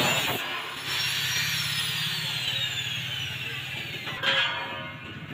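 Angle grinder cutting corrugated galvanized steel floor decking. The cut stops about half a second in and the disc's high whine falls in pitch as it winds down over about three seconds. Near the end there is another short burst of grinding on the metal.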